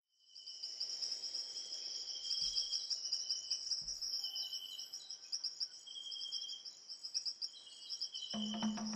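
Forest ambience of insects chirping in a steady pulsing drone, with repeated shorter high trills over it. A low sustained music tone comes in near the end.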